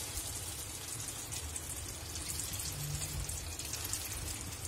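Hot oil sizzling and crackling in a kadhai as whole peeled boiled eggs are lowered in one by one to shallow-fry.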